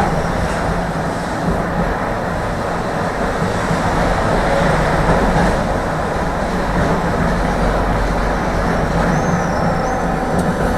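Tram running along the track: a steady rumble of wheels on rail and traction equipment.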